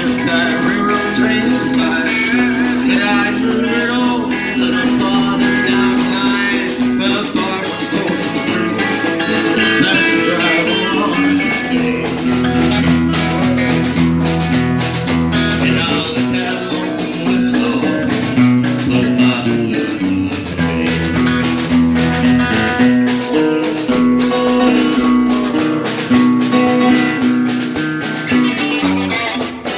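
A live band playing: strummed acoustic guitar and electric guitar over a steady drum beat.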